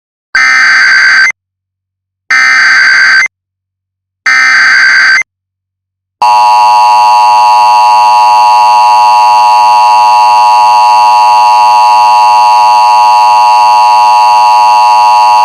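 Loud Emergency Alert System tones: three one-second bursts of SAME digital header data, a second apart, then, about six seconds in, the long steady two-tone attention signal.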